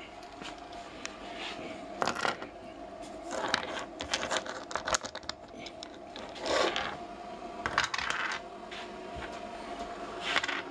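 Small brass Meccano gears clinking and clattering against each other and the workbench as they are picked up, handled and set down, in scattered clusters of light metallic clicks.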